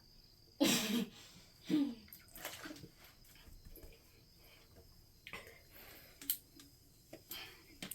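A person chugging soda makes three short breathy vocal noises in the first three seconds, each dropping in pitch, the first the loudest. A few small clicks follow later.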